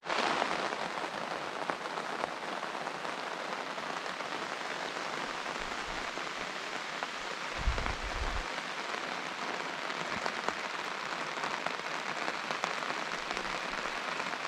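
Steady rain falling, an even hiss of many drops. About eight seconds in there is a brief low rumble.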